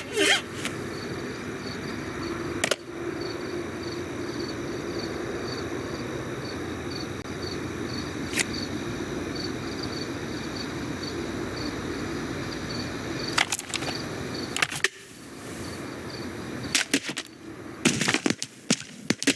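Steady background hum with a faint high tick repeating about twice a second, broken by a few sharp clicks, then a run of knocks and clatter near the end.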